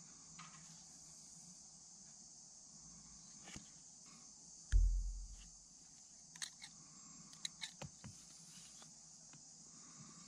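Handling noise of a hand-held wooden swimbait being turned over: a few light clicks and taps, mostly in the second half, and one dull low thump about halfway through, over a steady hiss.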